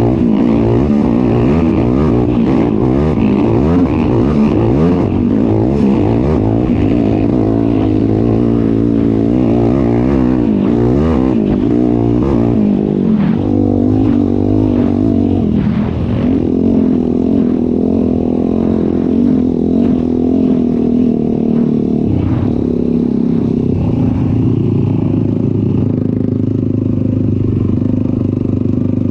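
ATV engine being ridden, its pitch rising and falling with the throttle through the first half, then running at a steadier pitch after about 13 seconds.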